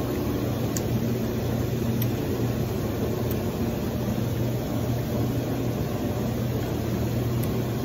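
Hot tub jets running: a steady rush of churning water with a constant low hum underneath.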